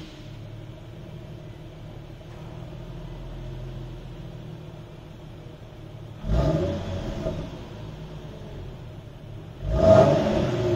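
Infiniti Q50's 3.7-litre V6 exhaust idling steadily, then revved twice: a short blip about six seconds in that drops back to idle, and a bigger rev near the end.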